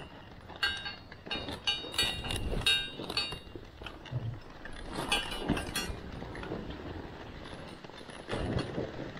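Irregular metallic clinks from a moving dog-sled rig, strongest in the first three seconds and again about five seconds in, over a steady scraping noise of the sled on snow.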